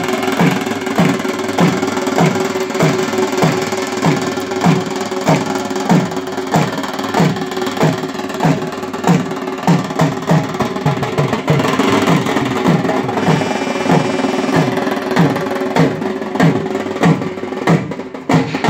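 A drum played in a steady, fast beat, about two to three strokes a second, over a steady held tone.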